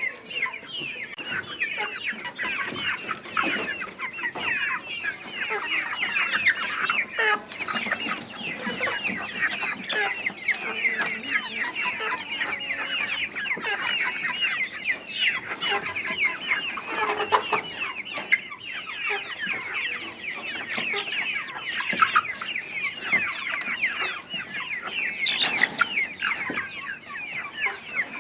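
Many young Improved Kienyeji chicks peeping continuously in a brooder, a dense overlapping chorus of short, high, falling cheeps, with a couple of louder sudden sounds partway through.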